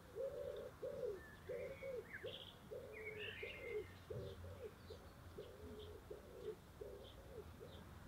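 A pigeon cooing: a steady run of low hooting notes, one or two a second. Small birds chirp briefly over it, about one to four seconds in.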